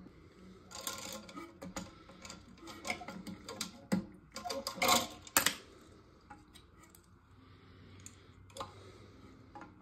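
Irregular light clicks and knocks of parts and tools being handled in toilet fill valve work. The clicks are dense for the first five seconds or so, then only a few scattered ones follow.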